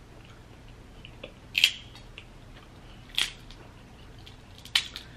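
Crab leg shell cracked and snapped apart by hand: three sharp cracks about a second and a half apart, with small crackles of shell between them.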